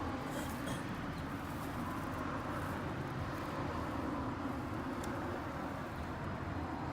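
Steady outdoor street noise with a vehicle running nearby, and a faint click about five seconds in.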